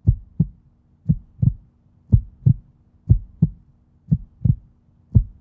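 Heartbeat sound effect: paired low thumps, lub-dub, about one pair a second with the second beat the louder, over a faint steady low hum.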